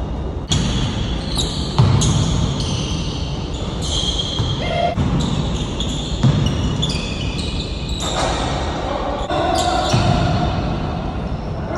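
A basketball bouncing and thudding on a court at irregular intervals during a pickup game, over a steady background noise.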